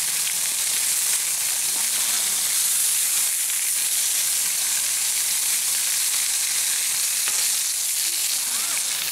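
A steady, even hiss, strongest in the high range, with faint voices twice underneath.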